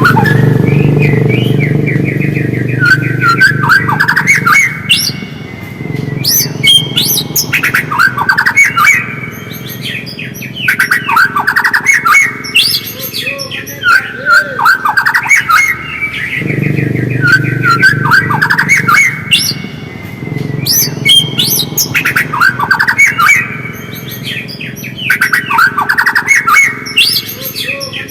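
White-rumped shama (murai batu) singing in repeated bursts of rapid, chattering whistled notes, the fast 'ngriwik' style of song used to provoke other shamas into singing. A low rumble sits underneath for the first few seconds and again past the middle.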